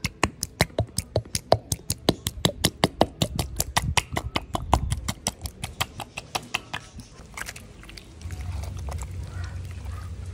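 Rapid, even taps, about five or six a second, of a hand slapping the bottom of an upturned sauce bottle to knock the sauce out. The tapping stops about six or seven seconds in, and a low rumble follows.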